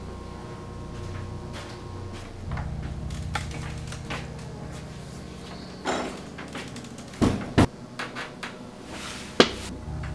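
A toilet-stall partition door pushed open and swung shut, giving a knock and then two louder knocks close together, with a sharp click near the end, over a steady low hum.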